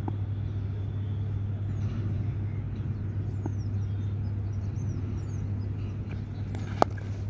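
A steady low hum with faint high chirps over it, and one sharp crack near the end.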